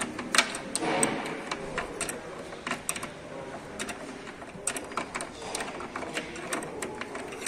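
Hand ratchet wrench clicking in quick, uneven runs as the 10 mm bolts of a car door check strap are tightened.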